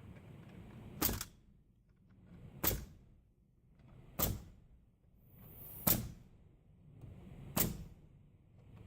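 Wire fencing being cut with snips: a sharp snap about every one and a half seconds, each with a soft rustle building up just before it.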